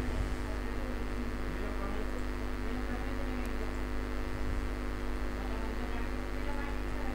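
Steady electrical mains hum, many even tones held level throughout, picked up by the recording.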